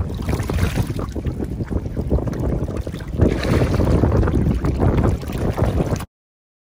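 Wind buffeting the microphone over splashing, sloshing water as a crowd of grey mullet thrash at the surface for bread. The sound cuts off abruptly about six seconds in.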